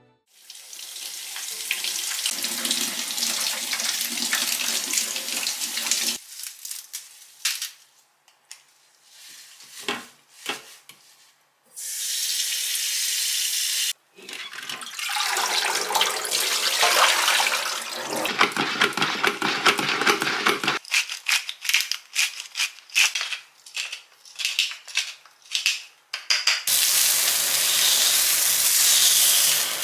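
Kitchen sounds of breakfast being made, in several short cuts. First comes water running from a tap, then scattered clicks and clinks. Near the end comes a longer run of quick taps and clicks, and then a steady hiss over a low hum starts.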